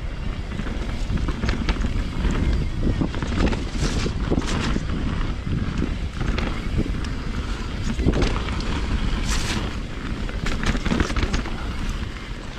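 A 2020 Rocky Mountain Instinct BC full-suspension mountain bike ridden downhill at speed: wind rushing over the camera microphone, tyres rumbling on the trail, and the bike rattling. There are sharp knocks from hits on roots and rocks, the loudest about four seconds in and again just after nine seconds.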